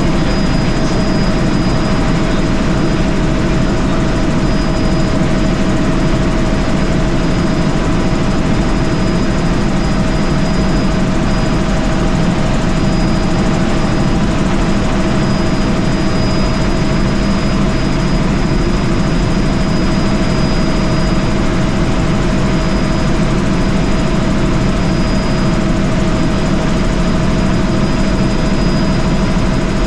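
Helicopter in flight heard from inside its cabin: a loud, steady drone of engine and rotor, with a constant high whine running through it.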